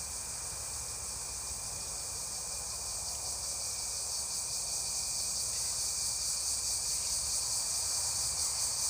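Insects chirring in a steady high-pitched chorus that swells gradually louder, with a faint steady whistle-like tone beneath it.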